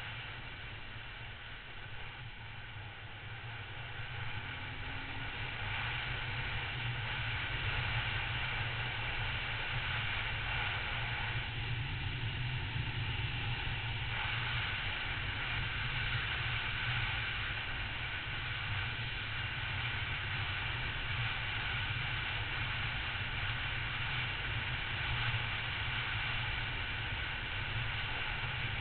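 Triumph Tiger motorcycle riding at road speed: steady engine and tyre noise under a heavy rumble of wind on the microphone. It grows a little louder about five seconds in and then holds steady.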